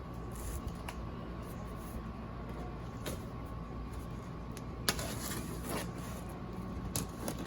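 A shipping package being opened by hand: a few scattered clicks and taps, then a burst of rustling and scraping about five seconds in and again near the end, over a steady hum.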